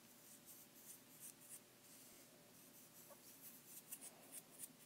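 Near silence with faint, sparse scratchy rustles: fingers rubbing a pinch of baking soda and sprinkling it into slime.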